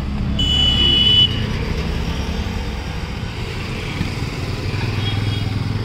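Street traffic running past a roadside stall, a steady low engine rumble. A loud, high, steady beep sounds for under a second just after the start, and a fainter one comes near the end.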